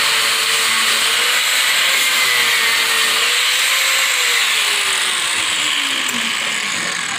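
Electric angle grinder grinding a rusty steel car frame rail down to bare metal, ready for welding roll-cage tabs. About four seconds in, the motor's pitch starts falling steadily as the grinder is lifted off the steel.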